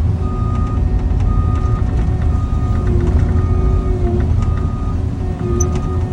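Cat 306 mini excavator's diesel engine running under working load, with its travel alarm beeping about once a second as the machine drives.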